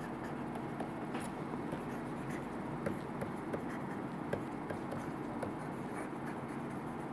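A pen stylus writing on a tablet-PC screen: faint, irregular small ticks and scratches over a steady low room hum.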